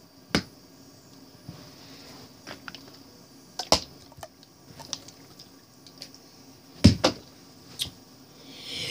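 Small plastic pill bottles and a marker being flipped and landing on a hardback book and carpet: several separate light knocks and clatters, the loudest a double knock about seven seconds in.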